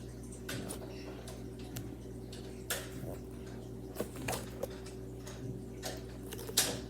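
Hands handling a NeeDoh squishy fidget toy: scattered soft taps and clicks, about eight spread irregularly, over a steady low electrical hum.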